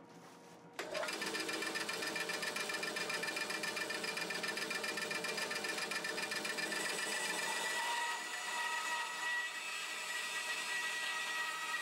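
Bandsaw starts up about a second in and runs steadily while a wooden ukulele neck blank is fed into the blade; a clearer, higher tone joins partway through.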